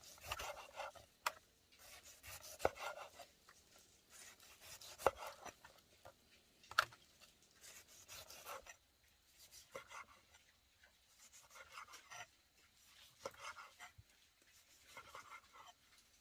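Irregular scraping and rubbing strokes, each about a second long, broken by a few sharp knocks, as of hand work with a tool or knife.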